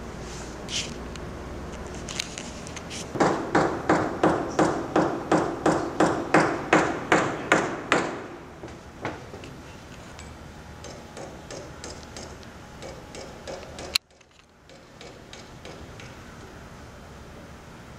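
A run of about fourteen evenly spaced knocks, roughly three a second, starting a few seconds in and stopping after about five seconds. A single sharp click comes later, after which the sound drops away suddenly.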